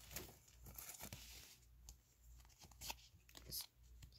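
Near silence with faint rustles and a few soft clicks of Pokémon trading cards being handled and slid through the hands.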